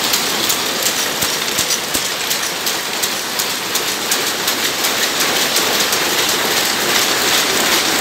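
Several rapier looms running together: a loud, steady, rapid clatter of fast repeating clicks from the beating-up and rapier strokes.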